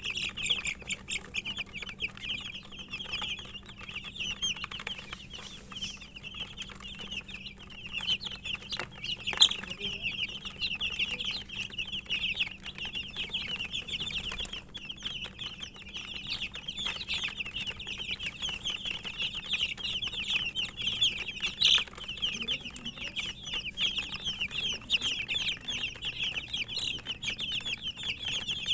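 A brood of domestic chicken chicks peeping continuously, a dense chorus of short, high cheeps with no pause. A few sharp clicks stand out, near a third of the way in and again about three quarters through.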